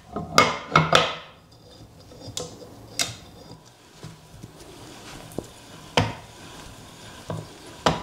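Steel parts of a Vevor 6-inch milling vice clinking and knocking as they are handled and fitted together: a quick run of sharp clinks in the first second, then scattered single clicks, the clearest about three and six seconds in.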